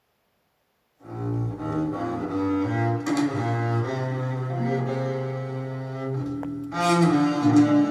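Recorded music with a strong bass line, played back through a single-ended class A tube amplifier and speakers, starting about a second in.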